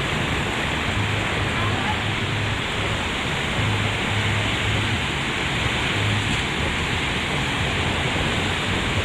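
Steady rush of water running down the water-park slides and splashing into the pool below.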